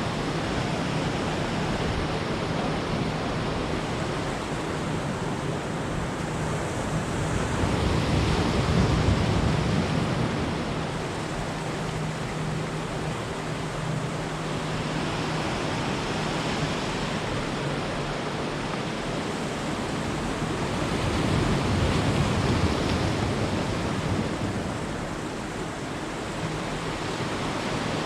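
Sea surf washing steadily, with waves breaking louder twice, about eight and twenty-one seconds in.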